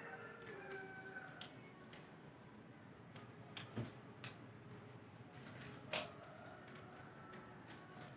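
Scattered small clicks and taps of objects being handled, the sharpest about six seconds in, with a duller knock a little before four seconds.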